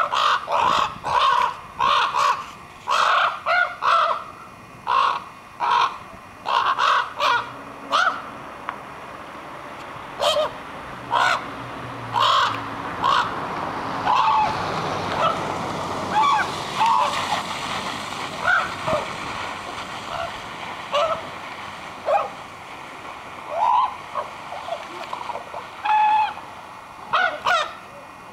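Two common ravens calling back and forth with short croaking calls, about two a second at first, then more scattered calls, some rising and falling in pitch. A steady rushing noise swells under the calls midway through.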